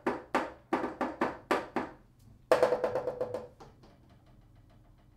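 Contrabass flute keys tapped and pressed without any air, giving a quick run of sharp key clicks, each combination of keys sounding a little different. About two and a half seconds in, a louder key slap rings on with a steady tone that fades over about a second, then only a few faint clicks follow.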